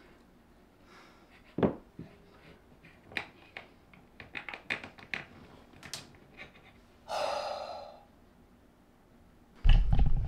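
Clicks and knocks of a metal swing-arm light mount and its hardware being fitted against a wall, the sharpest about one and a half seconds in and a quick run of them a little past the middle. A long breathy exhale follows about seven seconds in, and a heavy low rumble starts near the end.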